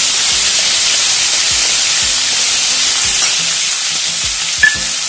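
Chopped onions, garlic, ginger and green chillies sizzling steadily in hot oil in a kadhai while a steel spatula stirs and scrapes through them, with one sharp clink near the end.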